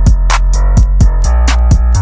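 Slowed-down hip-hop beat with reverb: deep sustained bass, drum-machine kicks and snares and steady hi-hats, with no vocals.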